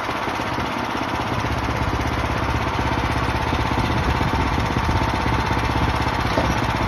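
Small gas engine of a bandsaw sawmill running steadily at working speed, with an even, rapid pulse.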